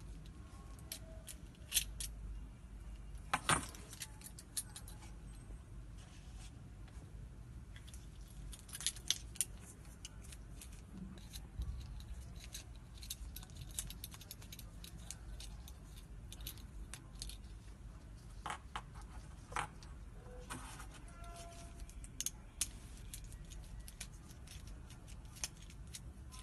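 Light metal clicks and clinks, scattered and irregular, as a small steel ring with inward spikes is turned over and screwed together by hand, with keys jangling at times. The loudest clack comes about three and a half seconds in.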